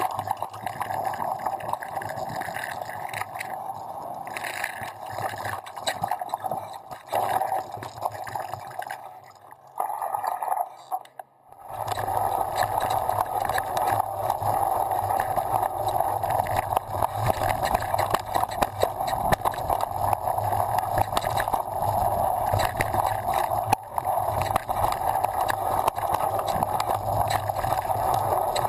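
A downhill mountain bike running fast down a dirt forest trail, heard through the rider's action camera: steady rushing noise with constant rattles and knocks from the bike and tyres over the rough ground. It goes briefly quiet about ten seconds in, then picks up again with a low rumble.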